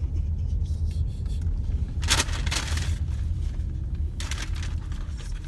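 Paper food wrapper rustling in two short bursts, about two seconds in and again about four seconds in, over the low steady rumble of the car.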